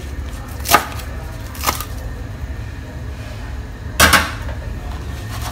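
Cleaver chopping dill and celery on a plastic cutting board: two single chops about a second apart, then a louder knock about four seconds in, over a low steady hum.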